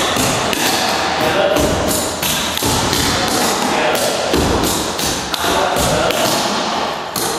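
Clogging taps on a wooden floor: a dancer's tap shoes striking in quick rhythmic steps of a clogging routine with buck and flatfoot steps.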